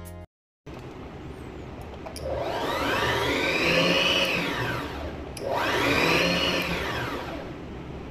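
Brother JV1400 sewing machine's electric motor, run by pressing the foot controller. It speeds up twice, each time rising in pitch to a whine and then slowing down again.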